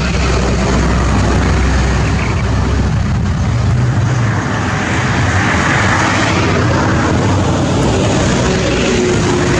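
Heavily loaded Hino diesel trucks climbing uphill, their engines labouring under load with a steady low drone. The noise swells about five to six seconds in as one truck passes close.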